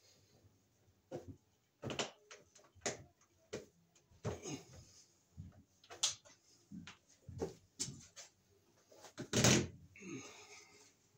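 Irregular knocks, clunks and rustles of a cable being handled and pulled through overhead wooden floor joists. The loudest thump comes about nine and a half seconds in.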